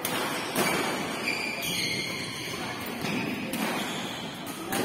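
Badminton hall sounds: a few sharp knocks of rackets hitting shuttlecocks and short high squeaks of shoes on the court mat, over a murmur of voices.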